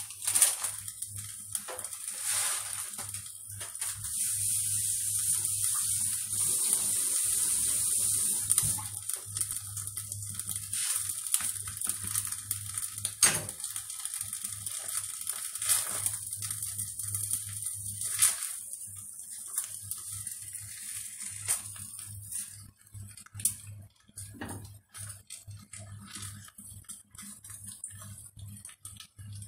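Saffron risotto rice sizzling in a hot pot while a wooden spatula stirs it, with scraping and knocks of the spatula against the pot. The sizzle is loudest for several seconds near the start, then fades so the stirring scrapes and taps stand out.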